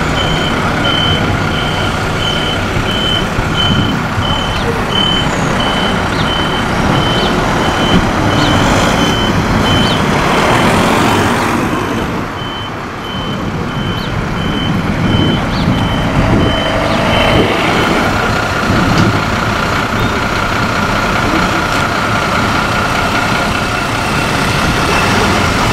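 A vehicle's reversing alarm beeping steadily about twice a second over running vehicle engines. The beeps fade and stop about two-thirds of the way through.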